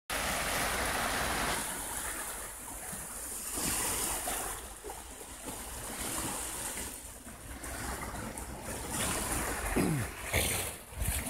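Small sea waves washing over a pebble beach, with wind rumbling on the microphone. Near the end comes a short falling sound and a couple of knocks.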